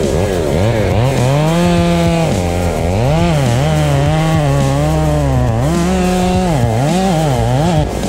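Two-stroke chainsaw running hard, its engine pitch repeatedly rising, holding and dipping every half second to a second.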